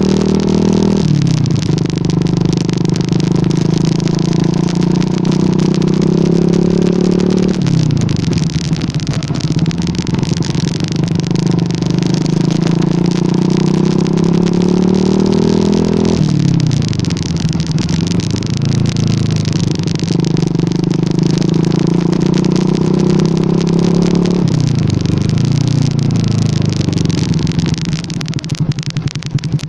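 Yamaha R15 V2's 150 cc single-cylinder engine running under way. Its note climbs slowly and drops sharply four times, with a steady rush of wind and road noise behind it.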